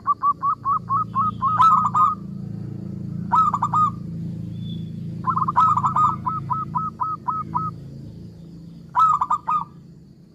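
Zebra dove (perkutut) cooing in four phrases of rapid, evenly spaced, hooked notes, with short pauses between them.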